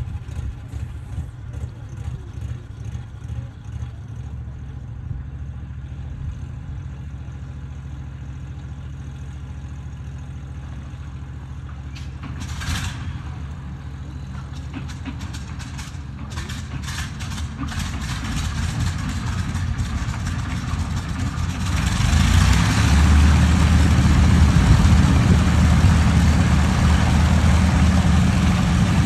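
A single Rolls-Royce Merlin V12 engine on an Avro Lancaster bomber running just after start-up, uneven at first and then settling to a steady idle, with a brief hiss about 13 seconds in. About 22 seconds in it gets much louder as the engine is run up.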